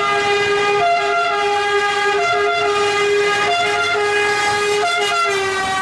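Ambulance siren sounding as the ambulance approaches: a steady horn-like tone whose pitch steps back and forth between notes.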